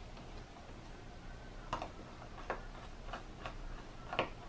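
Screwdriver driving a small screw into a battery management system's metal heatsink cover: about five sharp metallic clicks at irregular intervals, the loudest near the end.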